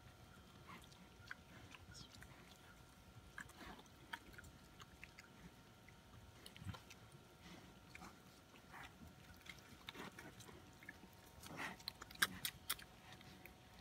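Pigs eating corn off the ground: faint, irregular chewing and crunching, busier and a little louder near the end.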